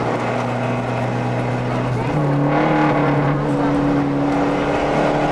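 Renault 5 GT Turbo rally car's turbocharged four-cylinder engine, heard from inside the cabin, running hard at speed; about two seconds in its note jumps up in pitch and holds higher.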